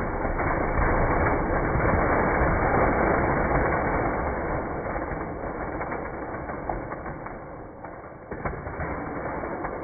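Slowed-down clatter of plastic magnetic building tiles tumbling and hitting the floor as a tower collapses: a dense rattling that builds over the first few seconds and fades toward the end.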